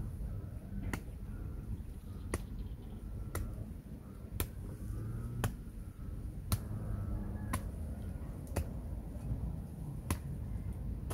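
Sharp clicks repeating evenly about once a second, over a faint low rumble.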